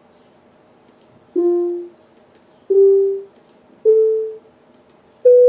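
Computer-synthesized note tones from a home-made music program: four single notes played one after another, each rising a step in pitch, the third at 440 Hz (A). Each note is a plain electronic beep with a few faint overtones, starting sharply and fading out within about half a second.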